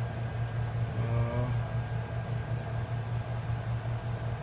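Steady low hum with a light hiss, the constant machine or room drone of a desk setup, and a brief murmured syllable about a second in.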